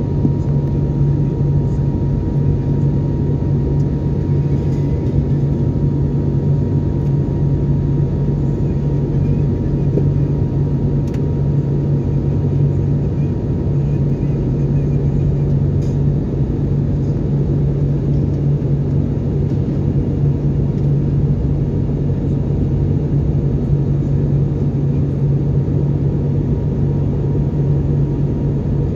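Steady low drone of an airliner cabin in flight: jet engine and airflow noise heard from inside the passenger cabin, with a strong even hum.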